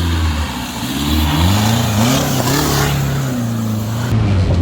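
A 4x4's engine revving up and down under load, its pitch climbing and dropping several times.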